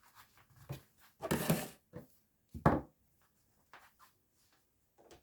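A few separate knocks and clunks of kitchen things being handled, with a longer scraping noise about a second in and the sharpest clunk near the middle.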